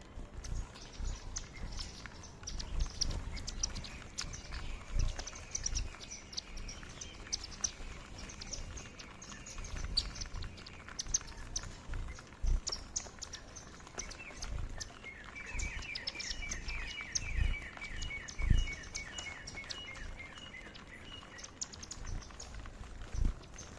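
Small flock of Indian silverbills (white-throated munias) feeding, with many short high chirps and ticks throughout. A run of quickly repeated trilled notes comes in the second half, and dull low thumps sound now and then.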